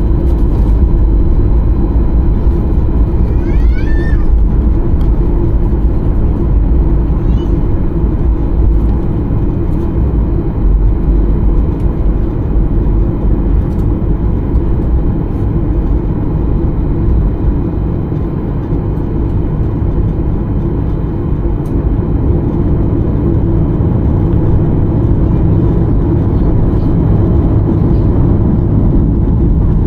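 Airliner cabin noise: a steady low rumble of engines and airflow, heard from inside the cabin.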